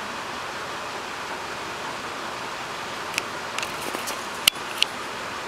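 Steady hiss with a few sharp clicks in the second half. The loudest is a clack about four and a half seconds in: a small wooden spinning top being handled and launched onto a polished stone counter.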